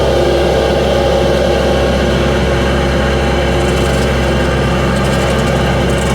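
Bobcat skid-steer engine running steadily at high throttle, driving an SG60 hydraulic stump grinder attachment whose worn, dull teeth chew into a green ash stump.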